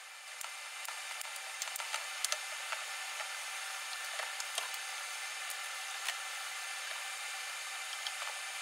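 A wooden screened enclosure being handled and turned upright, its frame giving scattered light knocks and clicks over a steady hiss.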